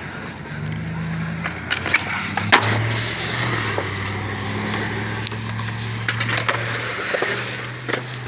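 Skateboard wheels rolling on a concrete skatepark surface, with sharp clacks of the board popping and landing. The loudest crack comes about two and a half seconds in.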